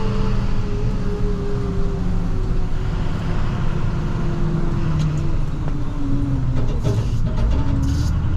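Inside the cab of an International TerraStar plow truck, its engine runs steadily as the truck drives. The engine note falls slowly as the truck eases off, then picks up again at the end, with a few short rasping noises near the end.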